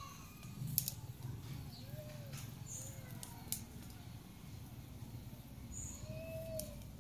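A few faint, short animal calls that rise and fall in pitch, about two, three and six seconds in, with a couple of faint clicks.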